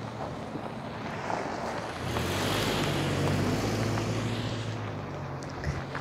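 Road traffic: a vehicle driving past close by, its low engine hum and tyre rush swelling to a peak about halfway through and fading again.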